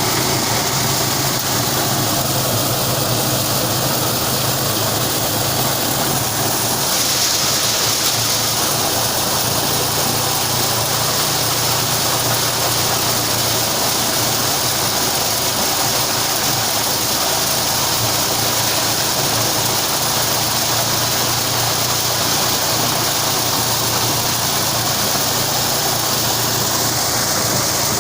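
Engine-driven corn machine running steadily with a dense mechanical rush over a constant hum; the higher rushing noise grows louder about seven seconds in.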